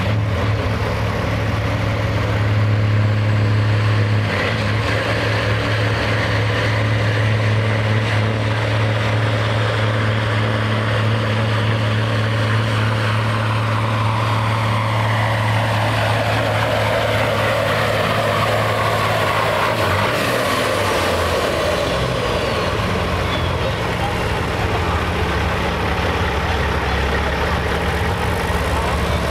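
A street semi truck's diesel engine pulls a weight-transfer sled under heavy load with a loud, steady drone. About twenty seconds in the engine eases off as the pull ends.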